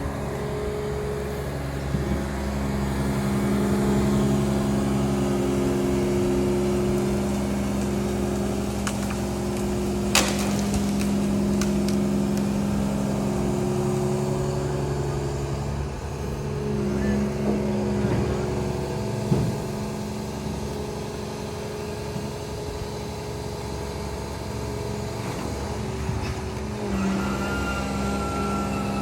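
Long-reach excavator's diesel engine running steadily under hydraulic load. Its pitch shifts about halfway through and again near the end, and there are a few knocks, with one sharp knock about ten seconds in.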